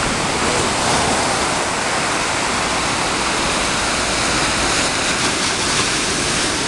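Ocean surf breaking and washing up the beach: a continuous, steady rush of waves.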